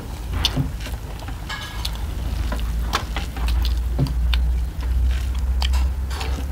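Close-up eating sounds: a person chewing a meal of rice and curries, with scattered crackles and clicks over a steady low hum.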